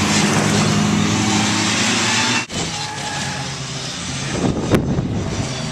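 Car running with loud, steady engine and road noise. The sound breaks off briefly about two and a half seconds in and carries on, with a sharp click near the end.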